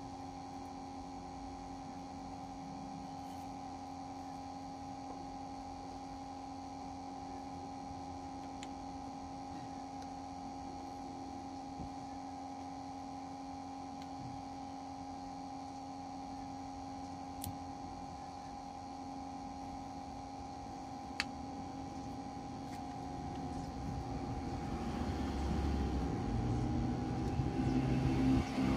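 A steady two-tone hum with a few faint sharp clicks; a rougher rumbling noise builds over the last five seconds or so.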